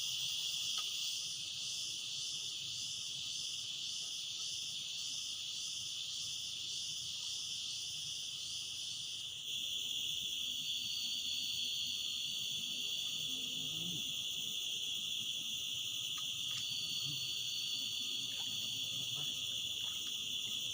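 Dense chorus of insects in a forest swamp, a continuous high-pitched shrilling. In the first half it pulses about once a second; about halfway through the pulsing stops and a higher, steady whine comes and goes over the chorus.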